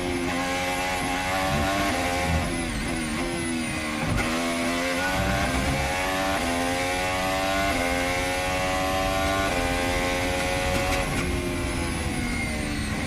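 Formula One car engine heard onboard at high revs. The pitch drops as the car slows about three seconds in, then climbs steadily under acceleration, with breaks in the pitch at the gear changes later on.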